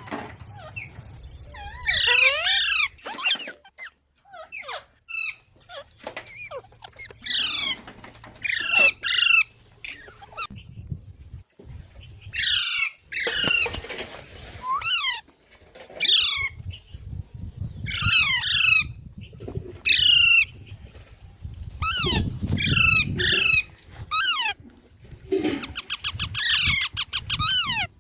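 Young parrots squawking: repeated harsh calls, each falling in pitch, coming in short bouts every second or two.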